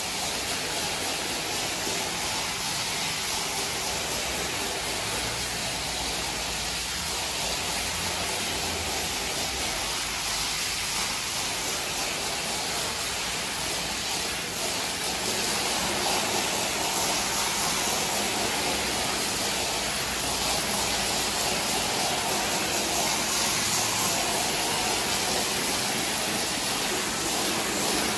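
Water jet from a hose nozzle spraying onto a soapy, foam-covered rug: a steady rushing hiss of water, a little louder from about halfway through.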